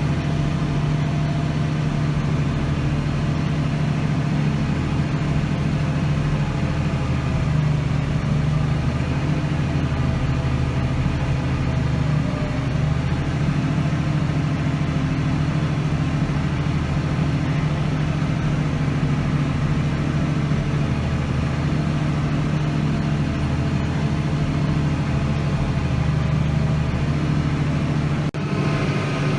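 Tractor engine running steadily under load as it pulls a power harrow and seed drill slowly through wet, heavy soil, a constant low drone.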